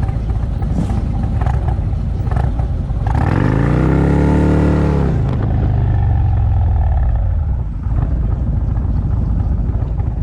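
Motorcycle engines running, with one engine revving up and back down about three seconds in, then a lower engine note that falls away before the steady rumble resumes.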